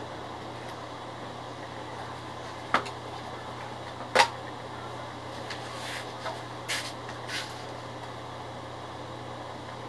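Hands handling the printer's plastic parts and tubing: two sharp plastic clicks, the second louder, then a few softer taps and rustles, over a steady low hum.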